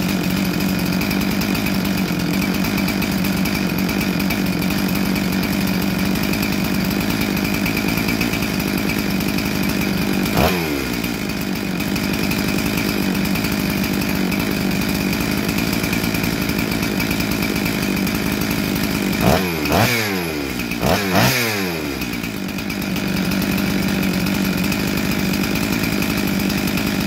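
Big-bore Husqvarna 372XP two-stroke chainsaw engine idling steadily. About ten seconds in, and three times in quick succession around twenty seconds, the engine note jumps and falls back to idle.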